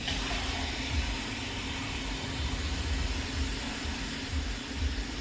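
Kitchen tap running water into a measuring cup, a steady hiss that comes on right at the start.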